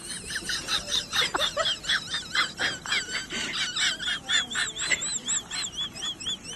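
High-pitched animal chirping: a rapid run of short, arched calls, several a second, with no pauses.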